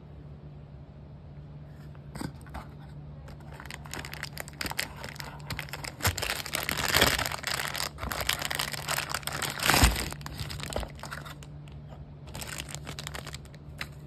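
Clear plastic packing bag crinkling and cardboard box rustling as a circuit board is unpacked by hand, loudest in the middle of the stretch.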